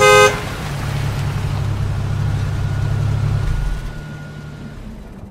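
A car horn honks briefly at the start. Then a car engine runs with a steady low hum that fades away about four seconds in.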